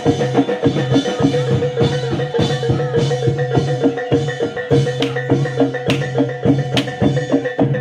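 Reog/jaranan accompaniment music: drums and hand percussion beat a fast, even rhythm over steady ringing tones, with a few sharper cracks in the second half.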